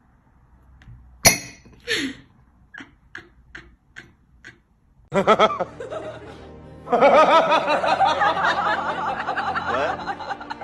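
A ceramic canister's lid clinks with a sharp knock, then a few light taps. From about halfway, laughter over background music takes over and is the loudest part.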